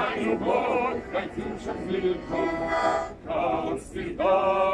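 A small group of older voices singing a Soviet song together, accompanied by a button accordion, with long held notes.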